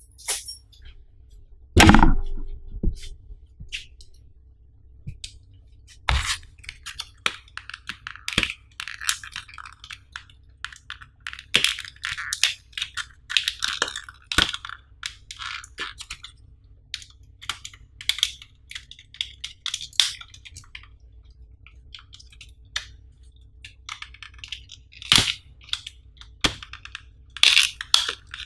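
Clear plastic blister pack being cut open and peeled apart by hand: the stiff plastic crinkles and crackles in repeated bursts, with small clicks, and a single loud knock on the table about two seconds in.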